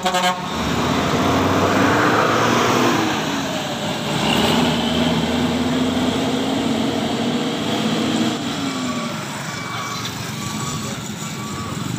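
Diesel engine of a large intercity coach pulling away after passing close, its engine note rising and falling as it accelerates through the gears, with a short loud burst at the very start.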